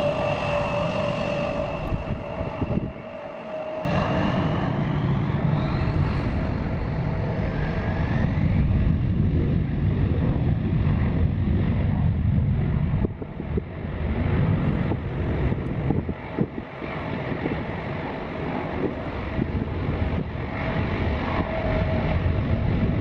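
Aircraft engines at takeoff power: a steady whine over a heavy low rumble, with the pitch of the whine rising a few seconds in. The audio is played at double speed.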